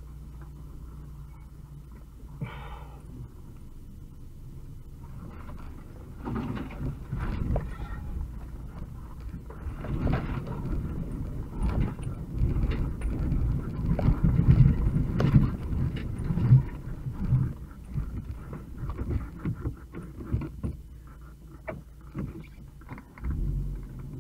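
UAZ 2206 van driving over a rough, rutted dirt track, heard from inside the cab. The engine drones steadily at first; from about six seconds in, the body and loose parts clatter and knock over the bumps, heaviest a little past the middle, then easing off.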